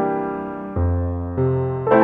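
Background music on a keyboard: soft piano-like chords struck about every half second to three-quarters of a second, each fading before the next.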